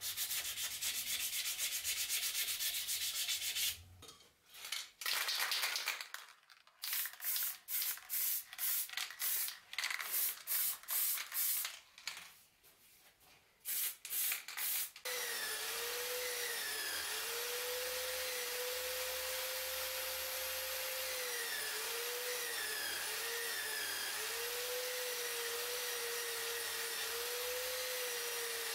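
Steel scraper blade shaving a wooden knife handle: first a steady scrape, then a run of short separate strokes with pauses between them. About halfway through, a buffing wheel on a drill takes over, spinning steadily with a hum that wavers up and down in pitch.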